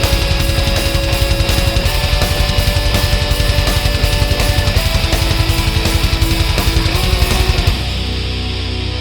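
Heavy metal background music with distorted guitar and a fast, driving drum beat; the drums drop out near the end, leaving a held chord.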